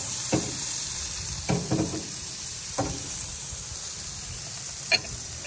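Hamburger patties sizzling on a gas grill's grates, a steady hiss, with a few short knocks scattered through, the loudest near the end.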